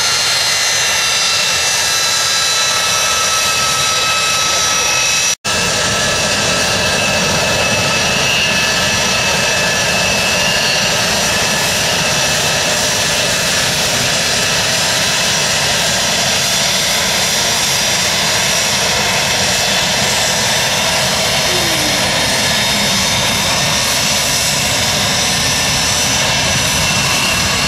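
Yakovlev Yak-40's three Ivchenko AI-25 turbofans running loud and steady as the jet taxis: a high whine with several steady tones over a broad rush of jet noise. There is a momentary dropout about five seconds in.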